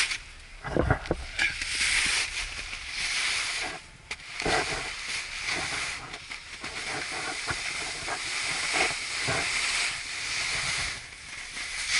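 Snowboard sliding and carving over snow: a hiss of the board's base and edges on the snow that swells and fades with the turns, with low thumps of wind on the camera microphone in the first second or so.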